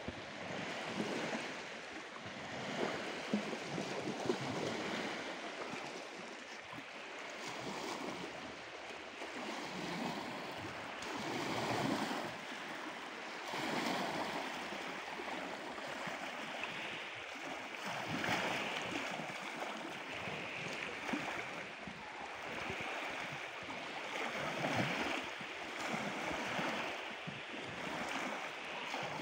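Small waves lapping and washing at the shore, the water sound swelling and falling back every couple of seconds.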